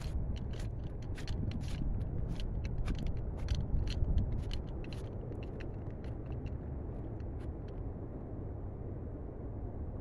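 Footsteps crunching in snow, about two to three crisp crunches a second, thinning out and stopping near the end, over a steady low rumble.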